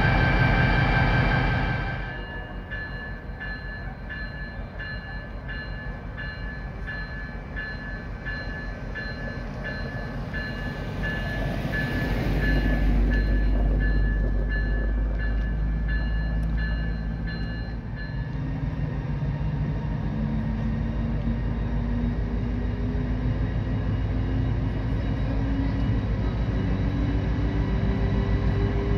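White Pass & Yukon Route EMD diesel locomotive pulling its train away: the engine's deep rumble builds and its note climbs as it throttles up. For the first part a ringing repeats about twice a second, stopping about eighteen seconds in.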